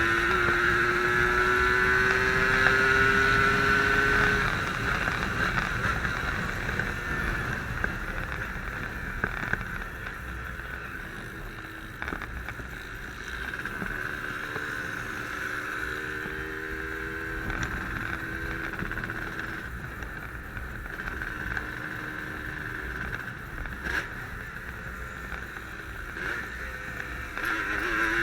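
Yamaha RD135 two-stroke motorcycle engine running on the move, held at steady high revs for the first few seconds, then easing off under heavy wind noise on the microphone, and revving up again near the end.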